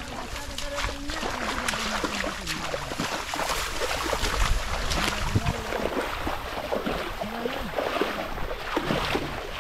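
Water splashing and sloshing, with many quick irregular splashes, as people wade and work a fishing net by hand in shallow water.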